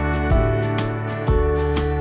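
Background music: guitar-led instrumental with a steady beat and notes changing about once a second.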